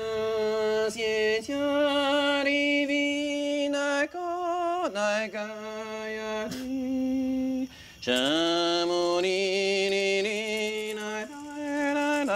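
A ceremonial healing chant (icaro) sung solo in a high voice: long held notes that waver and slide from one pitch to the next, with short breaks between phrases.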